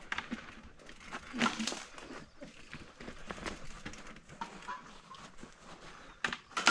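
Border collie breathing and its paws scuffing over a rocky dirt trail, heard close up from a camera harness on its back, with irregular scrapes and small knocks.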